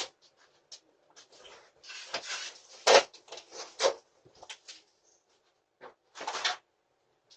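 A cardboard package being cut open and handled: bursts of scraping and rustling with a sharp knock about three seconds in, heard through a doorbell camera's microphone that cuts out between sounds.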